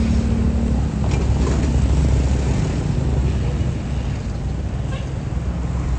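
Bus diesel engine running close by: a steady low drone with a few faint ticks over it.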